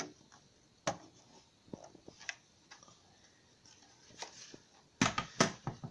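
Scattered clicks and knocks of a computer part being fitted back into a workstation case by hand, with two louder knocks near the end.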